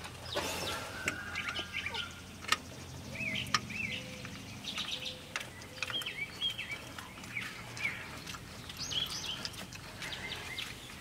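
Birds singing, with many short rising-and-falling calls, and a few sharp clicks, the loudest about two and a half seconds in.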